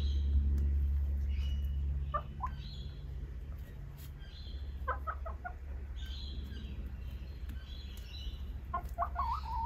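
Hens clucking, a few short clucks and a longer murmuring call near the end, with birds chirping faintly in the background. A low hum drops away about two seconds in.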